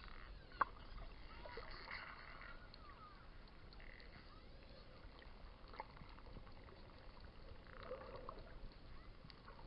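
Dolphins heard underwater: faint whistles gliding up and down, among scattered clicks, with one sharp click about half a second in.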